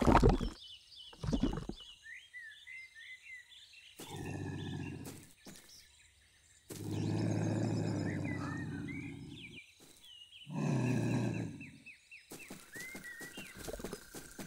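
Cartoon sound effects: a splash as the characters drop into the mud at the start, birds chirping, then a cartoon lynx growling low three times, each growl one to three seconds long.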